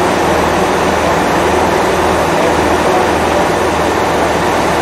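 Diesel engines of a standing Class 166 Turbo diesel multiple unit idling steadily, a low, even throb with no change in pace.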